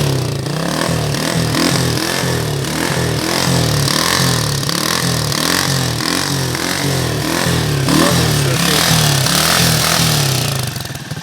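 Carbureted 1999 Honda CG motorcycle's single-cylinder four-stroke engine revved in quick, repeated throttle blips, a little louder in the middle and again near the end.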